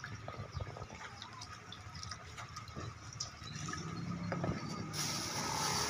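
Water swished and splashed by hand in a plastic bowl, with small scattered splashes and drips. A steady hiss comes up near the end.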